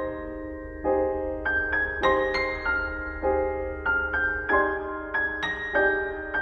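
Background music: a gentle piano melody, single notes and chords struck about two or three times a second, each left to ring.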